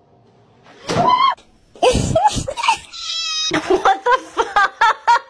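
Cat meowing: a couple of meows with rising and falling pitch in the first half, then a brief thin high whine and a run of short, quick calls near the end.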